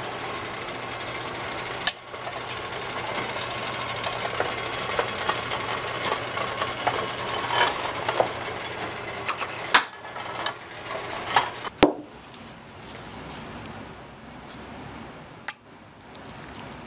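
A saucepan of soup bubbling under its glass lid on an electric coil stove: a steady hiss with a low hum and scattered light ticks, plus a few sharper clicks. About twelve seconds in it cuts to quieter room sound.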